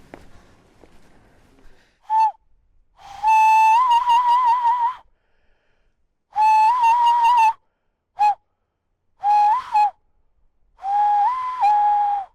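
Loud whistling in six short phrases: a clear tone held mostly on one pitch, with small steps and wavers, and the longest phrase lasting about two seconds.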